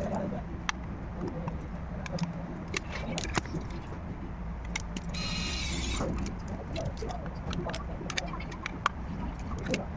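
Scattered light clicks and taps of small hand tools and parts during a phone body and screen repair, over a steady low hum. About five seconds in, a brief higher hiss with a few tones rises above it for about a second.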